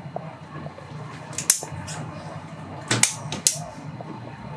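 Boat engines running with a steady low drone in the wheelhouse, broken by three sharp clicks: one about a second and a half in, then two more close together around three seconds.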